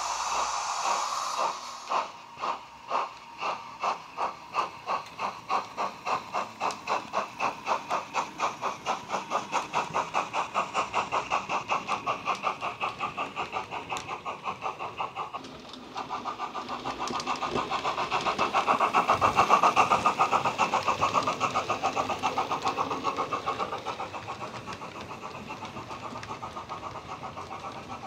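Digital steam sound of a Bachmann LMS Patriot model, a LokSound 5 decoder playing a three-cylinder LMS steam file through a small megabass speaker: a steady steam hiss, then the locomotive pulls away with slow, deep chuffs that quicken steadily to a fast beat. Past the halfway point the sound grows louder, the chuffs running close together, then eases off.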